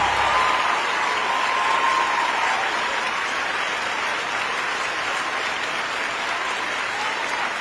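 Audience applauding steadily, with a few faint voices calling out over the clapping.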